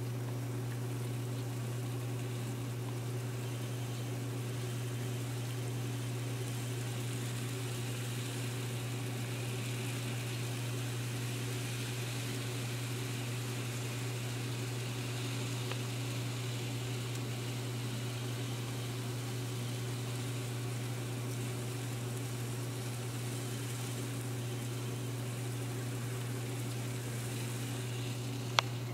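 Tenshodo Z-scale D51 model steam locomotive pulling 19 cars round the track: a faint high whir of the tiny motor and wheels over a steady low hum, with one sharp click near the end.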